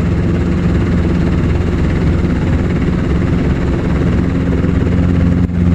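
Training helicopter's engine and rotor drone heard from inside the cockpit: a steady, loud hum with strong low tones and a brief dip near the end.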